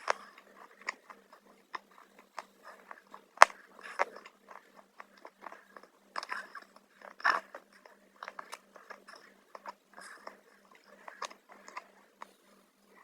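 Close-up crunching and chewing of crunchy chips, an irregular run of short crackles with one sharp, loud crunch about three and a half seconds in.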